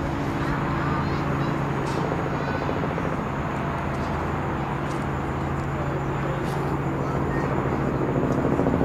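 Antonov An-70's engines, with eight- and six-bladed contra-rotating propfans, droning steadily as the aircraft moves along the runway: a low, even hum with a higher tone above it, growing a little louder near the end.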